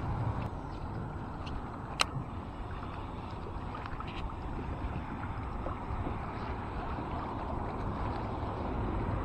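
Steady wind and water noise around a small kayak on open water, with a single sharp click about two seconds in.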